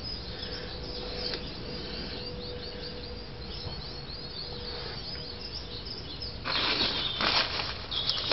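Small birds chirping over a quiet outdoor background with a faint steady hum; about six and a half seconds in, a louder burst of scraping and rattling as the brake caliper and pad are worked onto the new disc.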